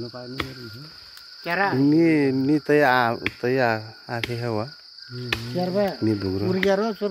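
Insects chirring steadily in a high, even drone throughout. Over it, a wavering pitched voice-like sound rises and falls in long stretches, loudest from about a second and a half in and again from about five seconds in.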